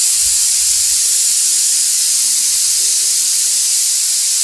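A stainless-steel pressure cooker whistling: steam hisses out loudly and steadily from under the lifted weight on its vent, the sign that the cooker has reached full pressure.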